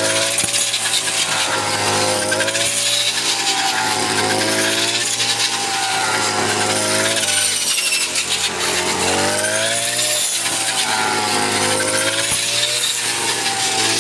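Farm machine's engine running continuously, its pitch sweeping up and down every two to three seconds.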